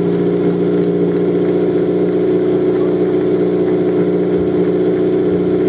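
Portable fire-sport pump's engine idling steadily at one constant speed while the team waits for the start.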